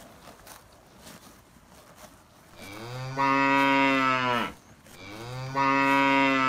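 Cow mooing: two long, low moos a little under a second apart, the first beginning about two and a half seconds in, each held steady and dropping in pitch as it ends.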